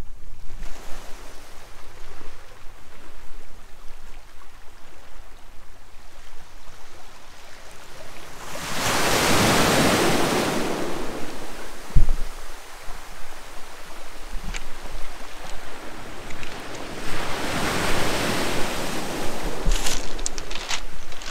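Sea waves breaking and washing up a shore, swelling loudest twice, about nine seconds in and again near the end, with wind rumbling on the microphone.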